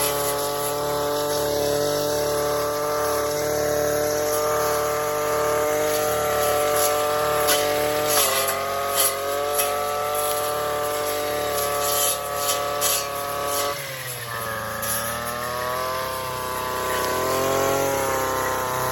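Gas weed whacker running at high throttle while cutting brush, with sharp clicks between about six and thirteen seconds. Its pitch dips slightly about eight seconds in, drops lower near fourteen seconds and then climbs back.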